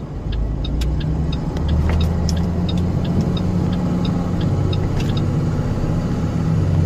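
Box truck's engine heard from inside the cab, a low steady hum that grows louder about two seconds in as the truck pulls onto the road. A light clicking about twice a second, the turn signal, runs through the first few seconds.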